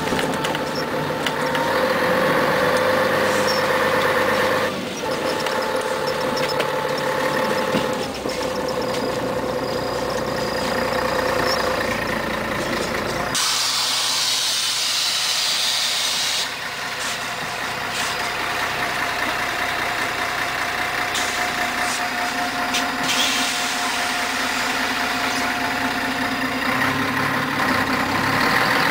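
Cabin sound of a 1994 Scania CN113CLL city bus. The diesel engine pulls with its note stepping up and down a couple of times. About halfway through there is a sharp hiss of compressed air lasting a few seconds, then the engine runs steadily at a lower note before picking up again near the end.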